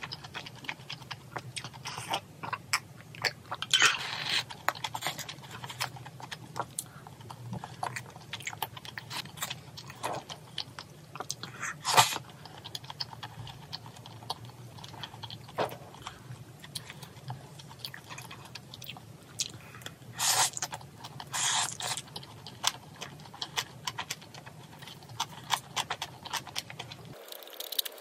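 Close-miked chewing of noodles and pork trotters: wet mouth clicks and smacks, with a few louder ones now and then.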